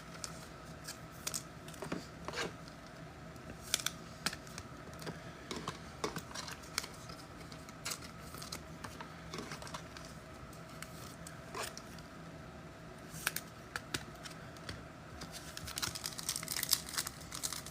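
Trading cards being handled: scattered light clicks and taps of cards over a faint steady hum. A few seconds before the end, a quick run of crinkling begins as packaging is worked open.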